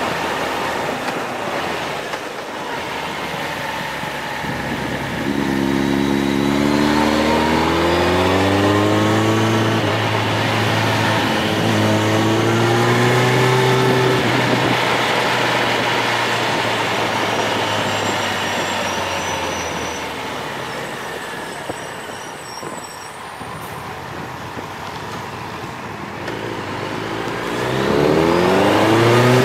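Vehicle engine revving up and down: its note climbs in pitch from about five seconds in, climbs again around ten seconds, dies away past twenty seconds, then rises sharply near the end. Steady wind and road rush run underneath.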